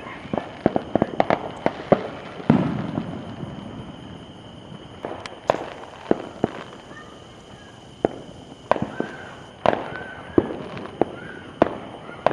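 Fireworks and firecrackers going off: a string of sharp, irregular bangs, with one bigger boom about two and a half seconds in that rumbles away.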